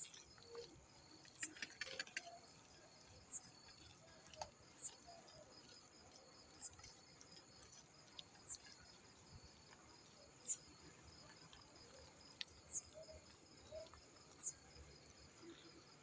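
Crickets chirping steadily in a faint, fast high trill, with a short, sharper high chirp cutting in every second or two.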